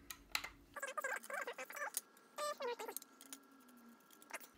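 Small hand tools working screws out of a Wahoo Kickr v2 trainer's plastic cover: a few light clicks of a precision screwdriver and Allen key against the screws and casing, with short squeaks and scrapes as the screws turn.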